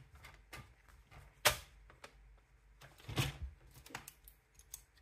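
Handling noise from cardstock and a plastic paper trimmer being lifted off the cutting mat: light ticks and rustles, with two sharper knocks, one about a second and a half in and one a little after three seconds.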